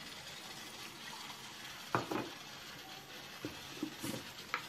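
Water poured into a tin rasam pot of cut tomatoes, with a few light knocks, the loudest about two seconds in.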